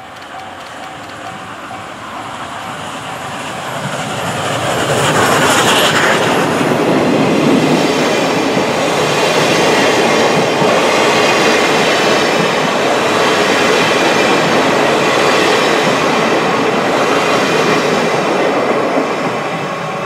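Steam locomotive C61 20 and five old-style passenger coaches rolling slowly past with the steam shut off: no exhaust beats, just the wheels clattering over the rail joints and some wheel squeal. It grows loud as the locomotive passes about five seconds in, the coaches clack by, and it eases off near the end. A level crossing warning bell dings during the first few seconds.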